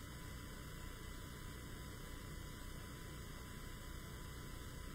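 Steady low electrical mains hum with a faint even hiss, unchanging throughout: quiet room tone picked up through the microphone and sound system.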